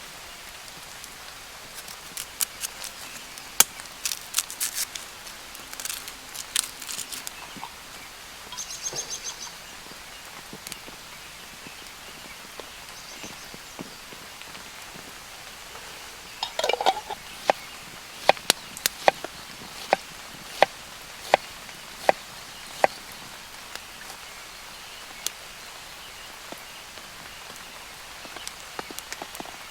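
Steady rain in the forest, with scattered sharp clicks and knocks. Past the middle, after a short rustle, a run of evenly spaced ticks, about one and a half a second, goes on for several seconds.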